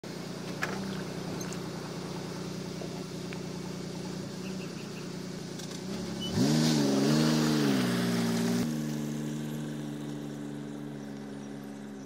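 Pickup truck engine running steadily, then revving briefly about six seconds in, the pitch sweeping up and wavering for a couple of seconds before settling back and slowly fading.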